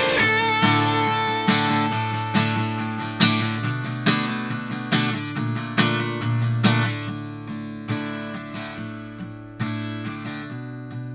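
Acoustic guitar strummed in steady chords, close-miked with an Aston Origin large-diaphragm condenser microphone. A strong accented strum comes a little under once a second, with the chords ringing on between.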